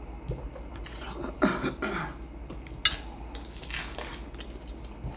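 Tableware clinking and clattering as things are handled at the table, a few separate knocks and scrapes with one sharp clink about three seconds in.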